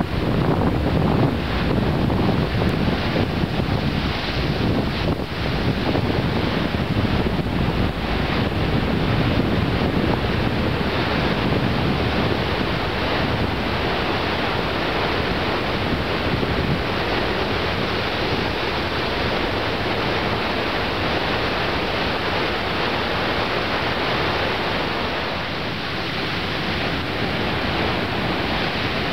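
Stormy ocean surf breaking and washing onto the shore in a continuous wash of noise, with wind buffeting the microphone, gustier in the first third.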